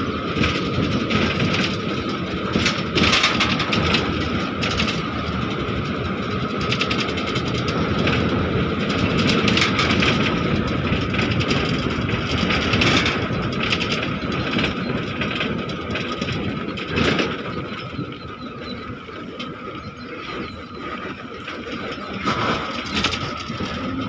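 A bus on the move: steady engine, tyre and wind rush at an open window, with a thin steady whine and scattered knocks and rattles from the body. The noise eases somewhat for a few seconds after the middle, then picks up again.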